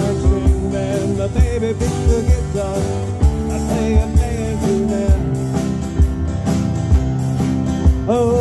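Live band playing a song: strummed acoustic guitars and keyboard with singing, over a steady beat.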